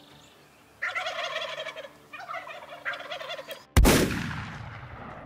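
Wild turkey tom gobbling several times in quick succession. About four seconds in, a single shotgun blast goes off, much louder than the gobbles, and its echo fades away.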